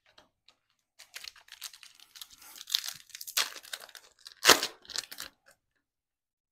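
Foil wrapper of a 2022 Panini Absolute football card pack being torn open by hand: a run of crinkling tears with the loudest rip about four and a half seconds in, then stopping.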